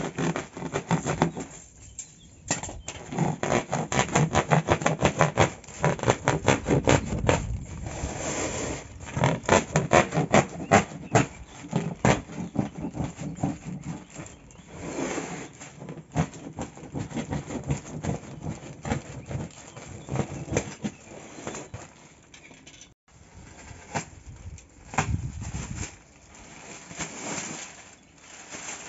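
Cleanup on a renovation site: irregular clatter, knocks and scraping as debris and objects are moved and swept up, busiest in the first half and thinning out later.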